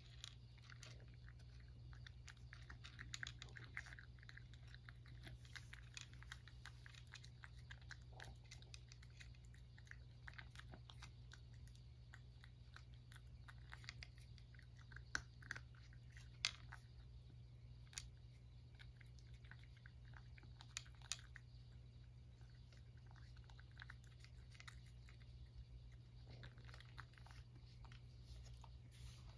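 A cat eating dry kibble from a ceramic dish: faint, irregular crunching and clicking as it chews, with a few sharper clicks around the middle.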